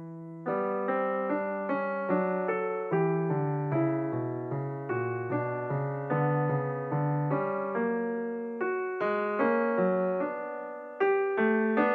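Solo piano background music: notes struck about two a second, each ringing and fading.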